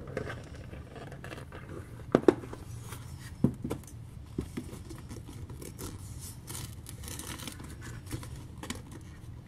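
A thin plastic stencil sheet being pulled and worked loose from a spiral-bound activity book by hand: soft scraping and rustling of plastic and paper with scattered light clicks, a couple of sharper ones about two and three and a half seconds in.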